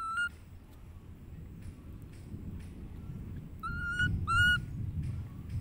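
Baby macaque giving short, high, whistle-like coo calls: one at the start, then two close together about four seconds in, over a low rumble.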